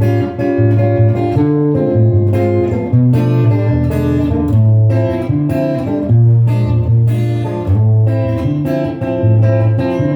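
Instrumental music led by guitar, plucked and strummed notes over a steady bass line.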